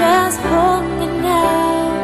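Music from a ballad in a stretch without lyrics: a lead melody with vibrato over steady held chords, settling onto one long note about halfway through.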